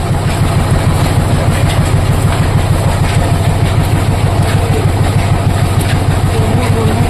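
Oil expeller machine running steadily with a rapid, regular pulsing beat.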